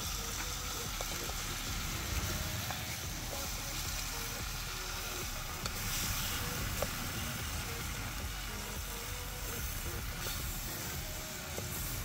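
Curried bird meat sizzling in a pot over an open wood fire as it is stirred, with a few light clicks of the utensil against the pot.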